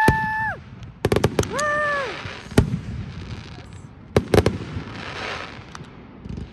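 Aerial fireworks bursting: sharp bangs about a second in, again a little later and in a quick cluster past the four-second mark, followed by a crackling fizz of crackle-effect stars. A spectator's drawn-out exclamation rises and falls at the start and again about two seconds in.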